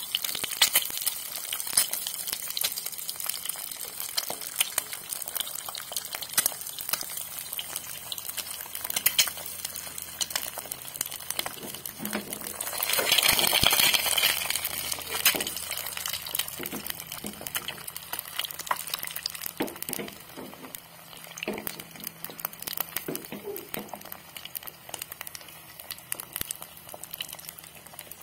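An egg frying in hot oil in a small pan: a steady sizzle full of sharp pops and crackles. About halfway through the sizzle swells into a louder hiss for a couple of seconds, then the crackling thins out and grows quieter toward the end.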